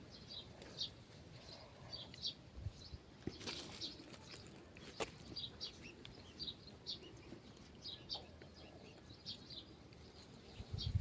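Faint small-bird chirps, short and high, repeating about twice a second, with a brief rustle about three and a half seconds in and a sharp click about five seconds in.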